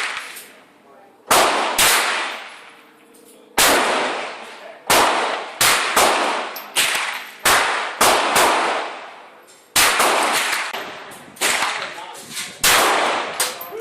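Mauser 1910/34 pocket pistol fired in a string of single shots, roughly a second apart and unevenly spaced, each crack trailing off in an echo.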